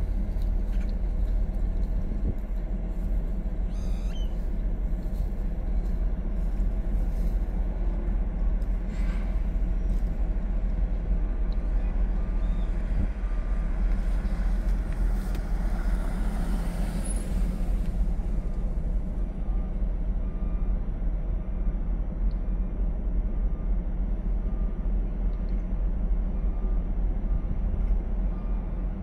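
A vehicle engine running steadily, heard from inside the vehicle as a low rumble. About halfway through, a hiss swells and then fades.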